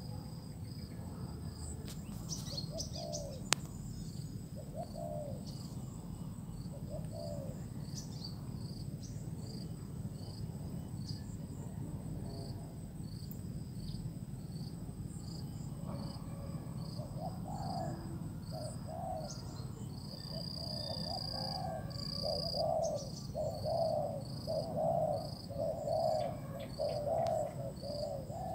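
Spotted doves cooing: a few scattered coos at first, then a near-unbroken run of repeated coos from about halfway. Insects trill steadily in high, even pulses underneath, and there is one sharp click early on.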